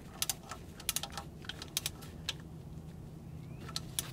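Ratcheting torque wrench on a transmission fluid strainer bolt, giving short sharp metal clicks in quick pairs and small irregular groups as the last bolt is run down to its 7 ft-lb torque.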